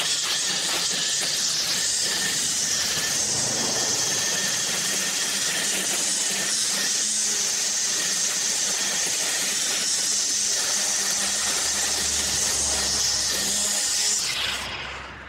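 Battery-powered string trimmer running steadily, its line cutting through thick, overgrown kikuyu grass. The sound drops away briefly near the end.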